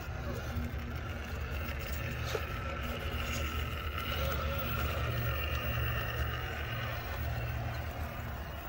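Electric motor and drivetrain whine of a Cross RC Demon SU4 scale rock crawler crawling over rock, drifting slightly in pitch with the throttle, over a steady low rumble of wind on the microphone.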